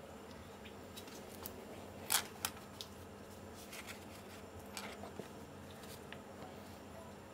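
Soft handling noises of a clay mug being sculpted: fingers and a small pointed modelling tool rubbing and scraping on the damp clay, in a few short scrapes and clicks, the loudest about two seconds in. A faint steady hum lies underneath.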